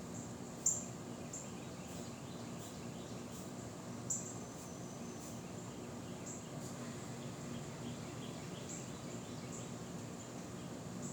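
Steady outdoor wind noise with short, high chirps scattered through it, two louder ones about a second in and about four seconds in.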